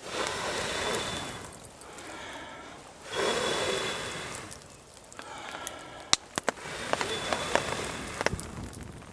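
A person blowing hard into a smouldering campfire of wet wood, several long breaths, to get it to flame. In the second half the fire starts snapping and crackling with sharp pops.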